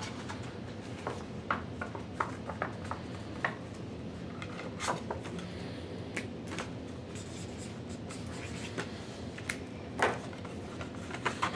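Markers writing on paper name tents and paper being folded and handled, with scattered light clicks and taps on a tabletop over steady room tone.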